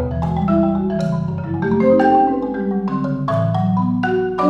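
Concert marimba played solo with mallets: a quick stream of struck notes and chords ringing over low bass notes. The player himself judges the playing weak, with no power because there is no weight behind the strokes.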